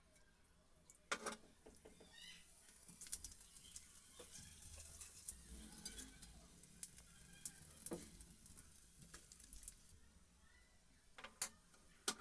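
Tempering (tadka) of garlic, cumin seeds, dried red chilies and chili powder sizzling and crackling in hot mustard oil in a small steel ladle. A few sharp metal clicks of a spoon against the steel, the loudest near the end.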